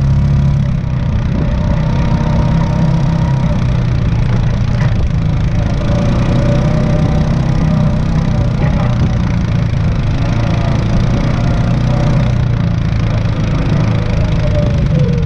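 Off-road vehicle engines running steadily at trail speed, heard from the riding vehicle, with an Arctic Cat Prowler 500 side-by-side following close behind.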